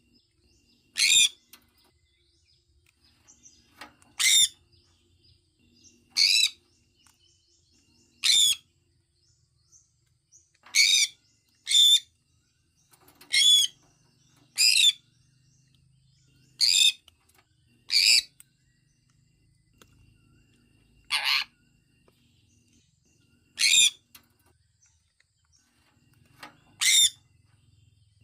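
Sun conure giving short, shrill, high-pitched calls one at a time, about thirteen of them spaced a second to three seconds apart, with a quick pair around the middle.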